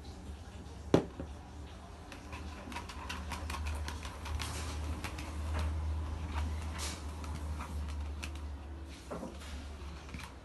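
Slime mixture of glue, paint and talc being stirred in a small pot: irregular light scraping and clicking against the pot, with one sharp knock about a second in, over a steady low hum.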